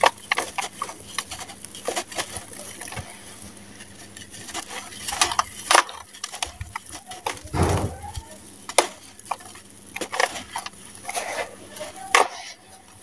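Hands squeezing and crumbling damp, gritty sand-cement mix in a plastic basin: irregular crunchy crackles and gritty rustling, with one heavier thump a little past the middle.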